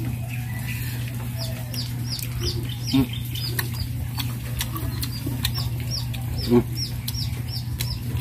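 Chicks peeping: a steady run of short, high, downward-falling peeps, two or three a second. Two short, louder low sounds come about three seconds and six and a half seconds in.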